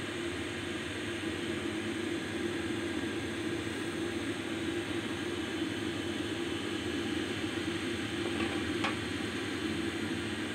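A steady rushing hiss with a low hum under it, unchanging throughout, and one short click about nine seconds in.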